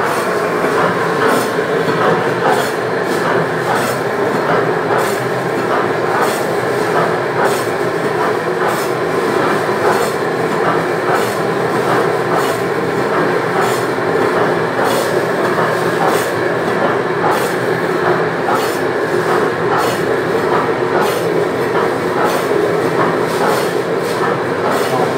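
Frozen meat slicing machine running, its motor humming steadily while the blade cuts through frozen beef with a regular run of sharp clacks.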